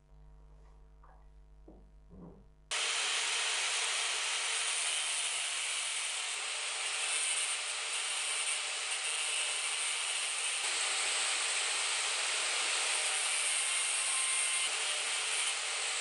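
A few faint clicks, then about three seconds in an angle grinder's abrasive disc starts grinding a small steel part clamped in a vise. It is a steady, high grinding noise that cuts off abruptly at the very end.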